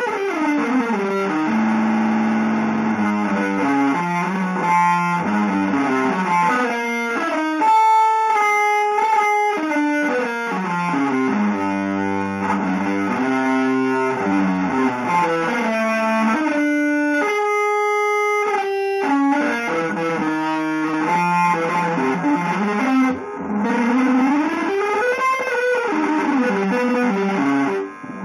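Electric guitar playing a winding line of single notes and short chords through effects, with a few held notes and with sliding, bending pitches about three quarters of the way through.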